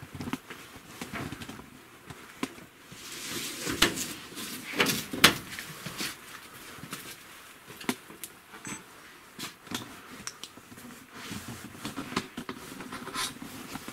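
Irregular knocks, clicks and rustling of people moving about and handling things in a small room. The loudest knocks fall about four to five seconds in, amid a short stretch of rustling.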